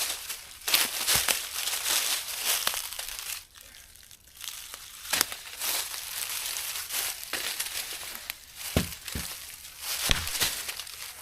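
Camping gear being handled while setting up camp: irregular crinkling and rustling, with a few dull knocks.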